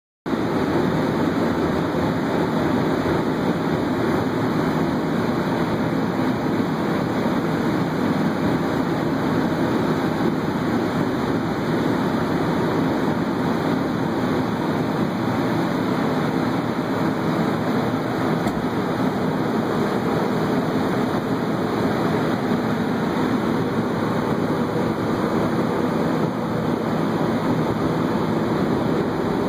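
Heaters and fans of a bed bug heat treatment running, a steady, even rush of blown air that does not change.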